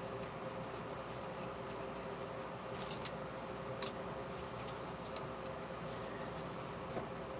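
Scissors snipping through painted paper a few times, faint against a steady room hum, with a short rustle of paper near the end.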